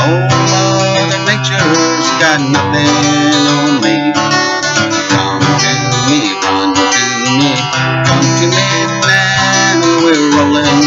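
Acoustic guitar strummed and picked, an instrumental passage between sung verses of a country song.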